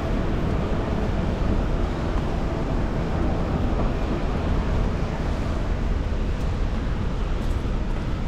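Wind gusting on the microphone over a steady hiss of rain, with a rough rumble at the bottom that never lets up.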